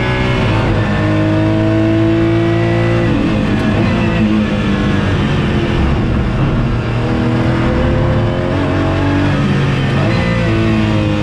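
Porsche Cayman GT4 race car's flat-six engine heard from inside the cockpit at speed on track, its note rising under acceleration and changing pitch at gear changes.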